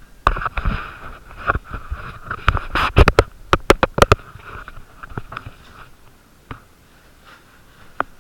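Handling noise on a ball-cap-mounted GoPro: close knocks, clicks and rubbing as the cap and camera are taken off and set down, a quick run of sharp knocks in the first four seconds, then only a few scattered clicks.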